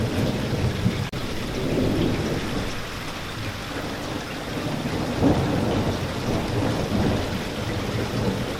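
Steady rain with continuous low thunder rumbling under it, swelling loudest about five seconds in. A split-second dropout comes about a second in.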